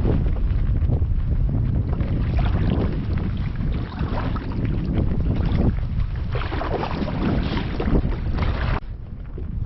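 Wind buffeting the microphone over water splashing and lapping around a fishing kayak, in irregular surges that ease off near the end.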